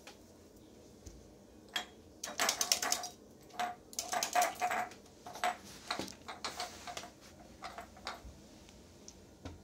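Pet rabbit nosing and scrabbling among glass jars on a ceramic tile floor, making runs of quick clicks and light glassy clinks. The clicks start about two seconds in, come thickest in two bursts, and thin out toward the end.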